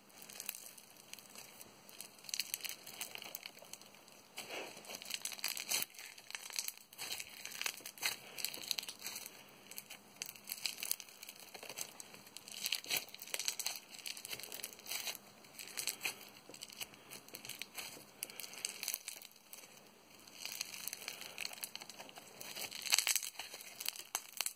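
Glittery pink slime being squeezed, stretched and folded by hand close to the microphone, making irregular sticky crackles and pops, busiest near the end.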